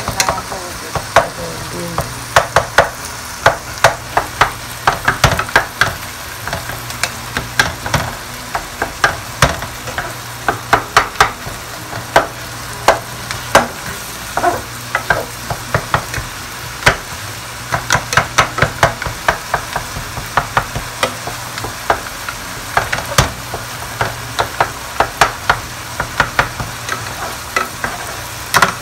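Ground beef browning in a nonstick pot, stirred and turned with two wooden spoons: a steady sizzle under frequent quick clacks and scrapes of the wooden spoons against the pot, coming in clusters, with a steady low hum underneath.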